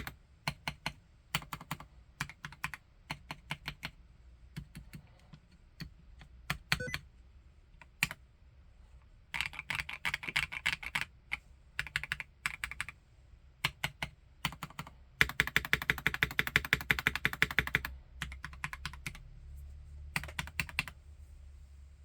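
Typing on an Omnitype Bauer Lite 65% mechanical keyboard with a plastic housing and Gateron Snow Rabbit switches. Separate keystrokes at first, then three fast runs of typing, the longest about three seconds long.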